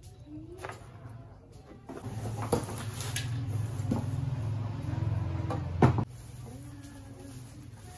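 Handfuls of freshly pulled weeds rustling as they are dropped into a stone mortar, with a few sharp knocks. A louder low hum sets in about two seconds in and cuts off suddenly about six seconds in.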